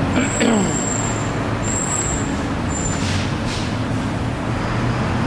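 Steady low hum and background noise of a working garage, with three short high-pitched whistles or hisses in the first three seconds.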